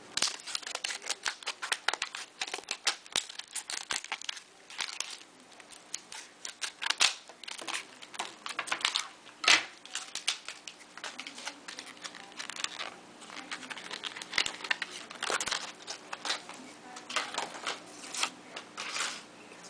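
Retail packaging of a graded trading card being handled and torn open, with crinkling, tearing and many sharp irregular clicks.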